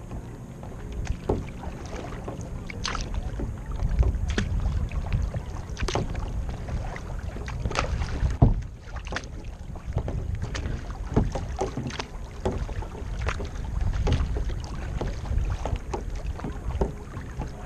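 Kayak paddling: irregular splashes and knocks of the paddle in the water, over a low rumble of wind on the microphone, with one sharper knock about eight seconds in.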